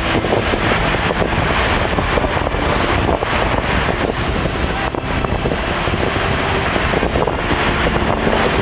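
Strong wind buffeting the microphone over rough sea surf breaking against a rocky shore, a loud steady roar that swells every few seconds.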